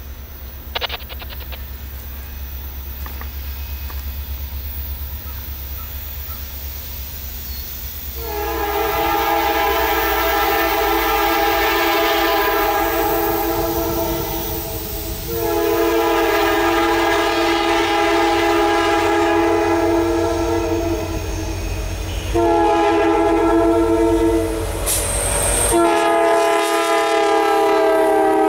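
Freight diesel locomotives approaching with a low rumble, then the lead unit, an SD70, sounding its multi-note air horn for a grade crossing: two long blasts, a short one and a final long one, getting louder as the train draws near and passes.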